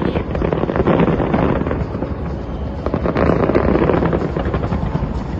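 A fireworks display going off: a dense run of bangs and crackles over a continuous low rumble.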